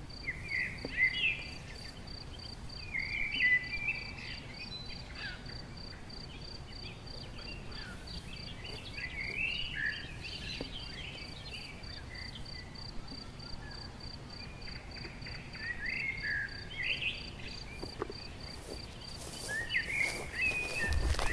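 Meadow ambience: a cricket chirping in an even, steady repeat, with birds singing short phrases on and off, and some rustling near the end.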